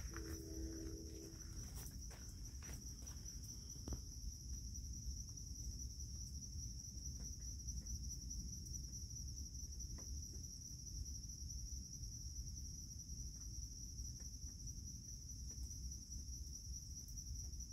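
A steady, unbroken high-pitched trilling chorus of insects such as crickets, over a low background rumble. There are a few faint clicks in the first few seconds.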